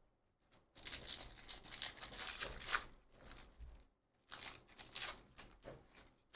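Foil wrapper of a trading-card pack being torn open and crinkled by hand, in two bouts of crackling: one starting about a second in, the other just past the four-second mark.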